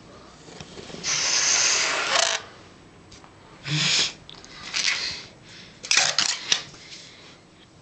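Latex balloon being blown up by mouth: a long hiss of breath rushing into it, then shorter puffs, followed by sharp rubbery squeaks and clicks from the balloon being handled.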